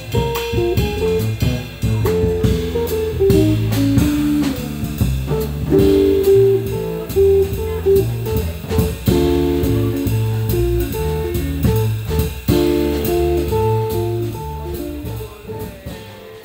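Small jazz band playing: electric guitar and bass guitar over a drum kit. The music fades out near the end.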